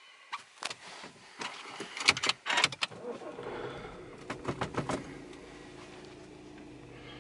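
Audi A4 B8's 2.0 TDI four-cylinder diesel being started: a run of clicks and knocks, then the engine catches about three seconds in and settles into a steady idle.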